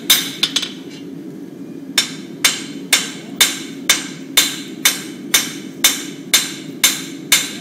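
Blacksmith's hammer striking iron on an anvil, each blow ringing. A couple of quick blows come first, then a pause of about a second and a half, then a steady run of about two blows a second. A steady low rumble runs underneath.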